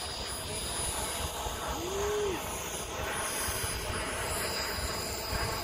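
Radio-controlled model aircraft in flight at a distance, its engine making a steady drone. A short tone that rises and falls is heard about two seconds in.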